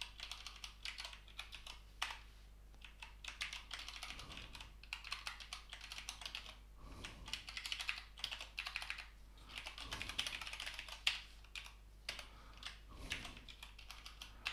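Typing on a computer keyboard: bursts of quick keystrokes broken by short pauses.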